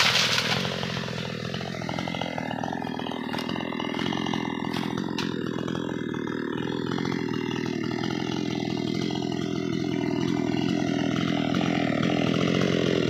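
Chainsaw engine running steadily without cutting, with a few faint clicks a few seconds in.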